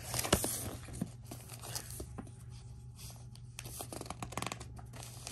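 Cardboard packaging from a laptop box being handled: irregular rustling and scraping of the card with many small clicks.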